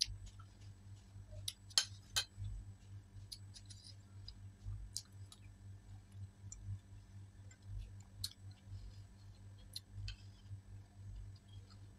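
Metal spoon clicking and scraping against a ceramic bowl of rasmalai, with mouth sounds of eating; two sharper clinks about two seconds in, over a low steady hum.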